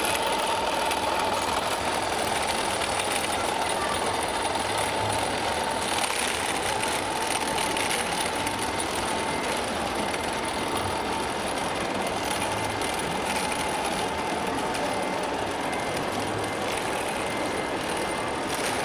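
Radio-controlled model tractor pulling a model manure spreader, its small electric motors giving a steady high whine over a constant background hiss. The whine weakens near the end.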